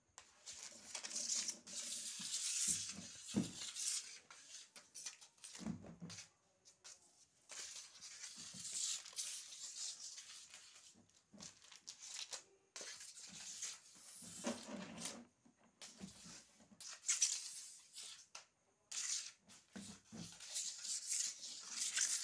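A stick-and-string cat lure scraping and swishing over a bare concrete floor while two kittens scrabble and pounce on it. It comes in irregular bursts of scratchy noise with short pauses, with a few soft thumps mixed in.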